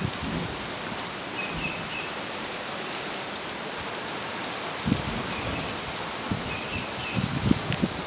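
Steady rain falling, with a few short, low, distant booms about five seconds in and again near the end, from a rhythmic booming source that locals cannot identify and that is too rhythmic to be thunder.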